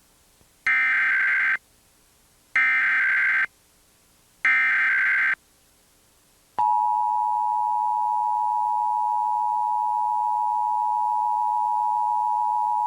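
Emergency Alert System required monthly test: three bursts of SAME digital header data, each about a second long with short gaps between. About six and a half seconds in, the steady two-tone attention signal begins and holds.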